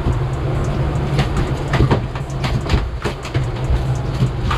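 A fishing boat's engine running steadily while the boat is under way, with irregular knocks and clatter over the drone.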